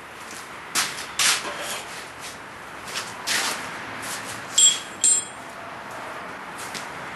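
Metal tools and a pan being handled at a coal forge: several short rubs and scrapes, then two brief metallic clinks a little past halfway.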